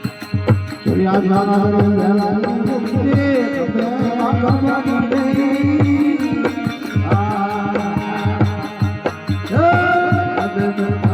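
Rajasthani desi bhajan music: a gliding, ornamented melody line over a steady, regular hand-drum beat, with a new phrase entering about a second in and another near the end.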